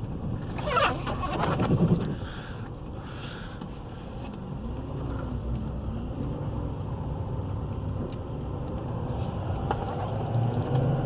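Cabin noise of a 2017 Chevy Silverado 3500 pickup braking hard, with a brief wavering squeal about a second in, then the road noise dies down as the truck slows almost to a stop and runs on at low speed.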